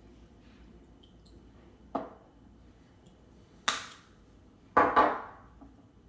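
Glass soy sauce bottle and metal measuring cup handled on a stone kitchen counter: a light click about two seconds in, a sharp knock a little later, then two louder knocks close together near five seconds, each ringing out briefly.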